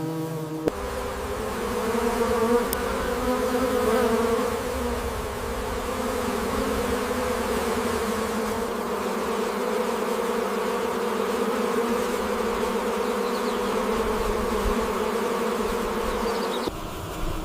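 Steady buzzing of a flying insect, one unbroken pitched hum. It starts abruptly shortly after the beginning and cuts off suddenly near the end.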